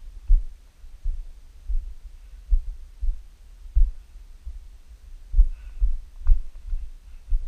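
Walking footsteps on a rocky mountain ridge, picked up through a body-worn camera as deep, dull thumps about once every half second to a second, with faint clicks of stones underfoot.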